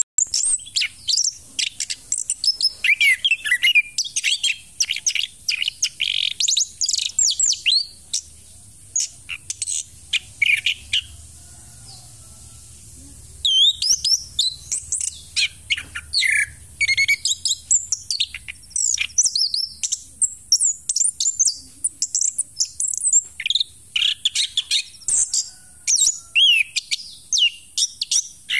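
Chestnut-capped thrush (anis kembang) singing vigorously while in moult: a rapid, varied stream of high chirps, whistles and trills, with a break of a couple of seconds about halfway through.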